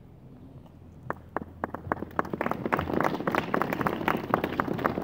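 Applause: scattered hand claps start about a second in and quickly thicken and grow louder into steady clapping from a group of people.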